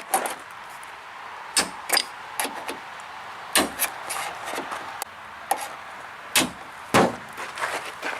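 A string of irregular sharp knocks and clanks, about a dozen over eight seconds, over a steady background hiss.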